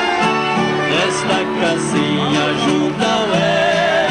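Live Brazilian country trio playing two acoustic guitars and an accordion, with strummed guitar rhythm under held accordion chords and a wavering melody line coming in near the end.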